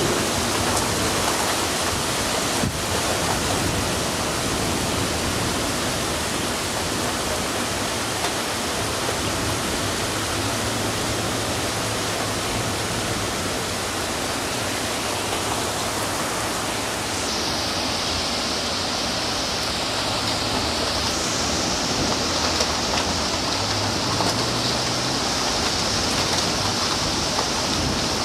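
Heavy rain pouring steadily in a thunderstorm, an even, dense hiss.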